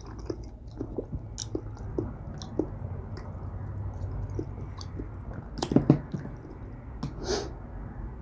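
Close-miked chewing and wet mouth sounds of a person eating, with irregular small clicks and a louder cluster a little before the six-second mark.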